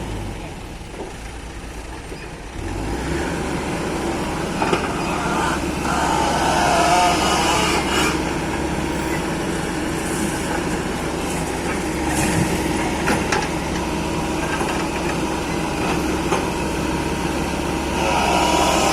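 Excavator's diesel engine running under load while it loads soil, getting louder about two and a half seconds in, with a few scattered knocks.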